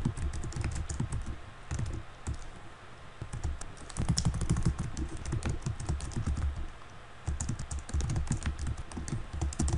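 Typing on a computer keyboard: a run of irregular key clicks with a couple of short lulls.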